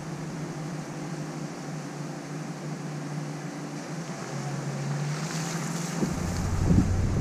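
A vehicle's engine running steadily at low speed, its pitch stepping up slightly about four seconds in, with wind buffeting the microphone for the last second or so.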